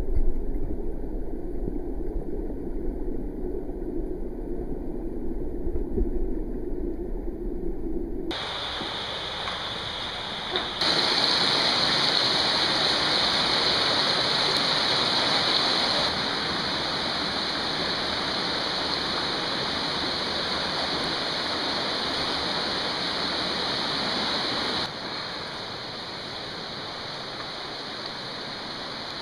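Rushing creek water and waterfall noise in a rocky canyon: a muffled low rumble for the first few seconds, then a steady, full rushing of water from about eight seconds in, changing in level a few times.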